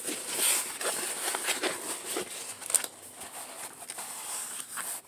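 A tightly rolled diamond-painting canvas and its printed protective sheet being unrolled and smoothed flat by hand, giving irregular rustling with a few sharper crackles.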